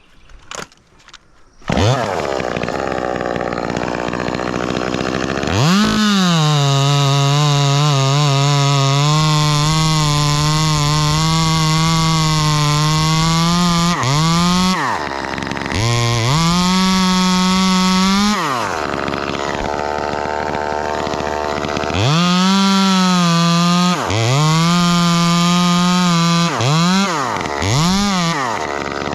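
Ported Echo 2511T two-stroke top-handle chainsaw comes in about two seconds in and idles briefly. It then revs up and is held at high throttle for long stretches, its pitch wavering as it cuts. It drops back to idle twice between bursts, and near the end gives several quick revs.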